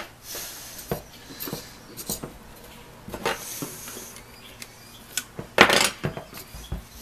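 Scattered clicks and clinks of a metal tool and suspension fork parts being handled while the fork is taken apart, with a short, louder scrape about five and a half seconds in.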